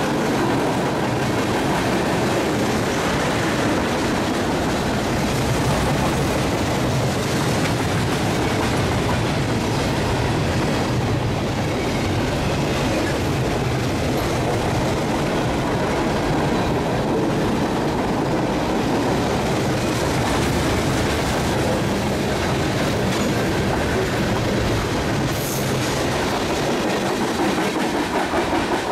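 CSX freight train rolling steadily past, with its steel wheels running over the rails.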